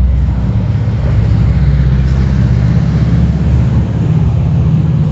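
A motor vehicle's engine running close by, a steady low rumble.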